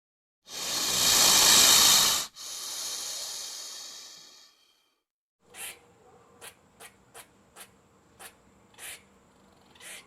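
Cat hissing: one loud hiss about two seconds long, then a second, weaker hiss that fades away. It is followed by a few soft, short clicks at uneven spacing.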